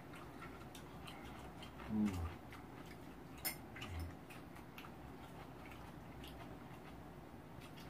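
Quiet eating at a table: faint scattered clicks of chopsticks and a metal spoon against the rice pot, bowls and stew pot, with soft chewing. A short hummed voice sound comes about two seconds in, and a sharper click and a low knock come a little later.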